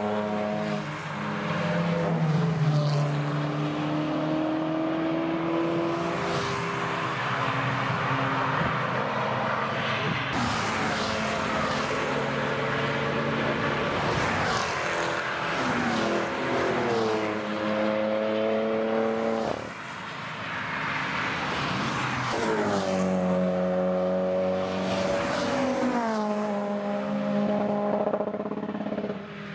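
Several cars driven hard past a race-circuit corner one after another, engines rising in pitch as they accelerate away, with gear changes and overlapping passes.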